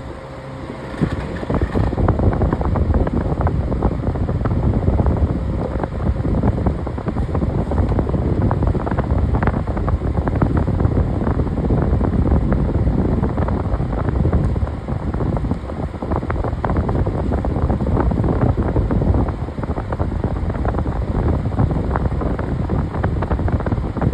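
Strong airflow from a running electric fan buffeting the microphone: a steady, loud rumbling wind noise with crackle, rising about a second and a half in.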